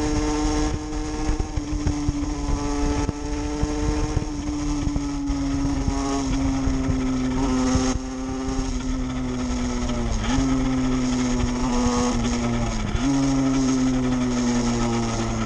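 50cc two-stroke motorcycle engine running at high revs while riding, its pitch slowly sagging and then jumping back up sharply twice, about ten and thirteen seconds in, over a light rush of wind.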